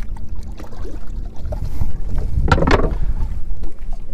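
Wind buffeting the microphone, a steady low rumble, with a brief voice about two and a half seconds in.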